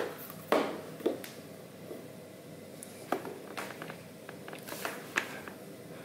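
Faint, scattered clicks and rustles of handling or movement over a low, steady room background.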